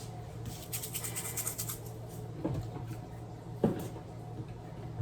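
Kitchenware being handled: a short stretch of faint scraping, then two light knocks.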